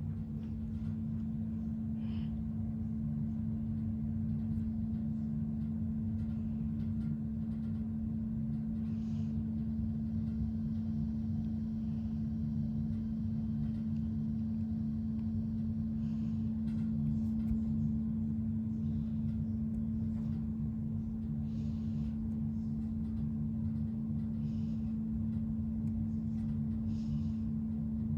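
Hampton Bay ceiling fan running steadily: a constant motor hum over a low rumble, with faint ticks now and then.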